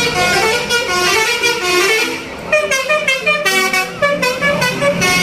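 Telolet bus horn: a multi-tone musical horn playing a quick tune of horn notes that step up and down in pitch.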